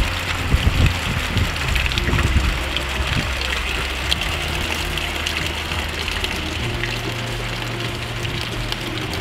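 Heavy rain and rainwater runoff rushing steadily down a PVC downspout from a metal roof gutter into a plastic IBC tote. The water is filling the tote.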